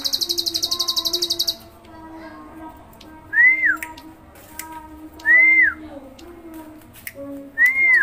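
Caged ciblek (bar-winged prinia) giving its rapid, high-pitched buzzing trill, the 'ngebren' song, which stops about a second and a half in. Three short whistled notes follow, each rising then falling, about two seconds apart.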